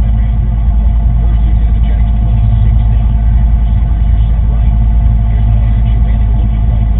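An engine running steadily, with a loud low rumble.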